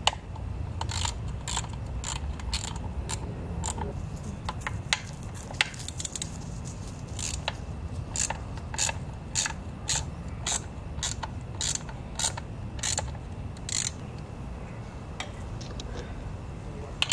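Hand socket ratchet clicking as it backs out the skid-plate bolts on a Yamaha YZ250F dirt bike: a long run of short clicks, a few a second, thinning out near the end.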